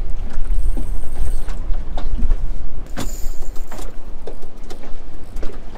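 Fishing reel whirring in two short high buzzes, each about a second long, one near the start and one about three seconds in, as a hooked kingfish pulls against a hard-bent rod. Heavy low wind rumble on the microphone underneath.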